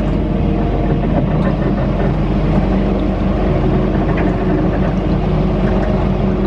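Steady low rumble and hum inside the cabin of a dark-ride submarine vehicle, with a few fainter held higher tones over it.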